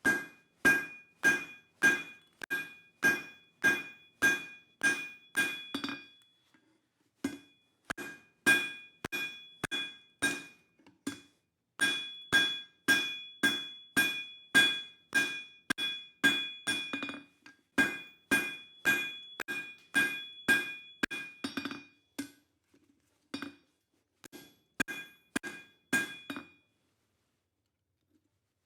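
Hand hammer striking hot spring steel on an anvil at about two blows a second, each blow ringing the anvil, drawing out the taper of a chisel. The blows come in runs with short pauses and stop a couple of seconds before the end.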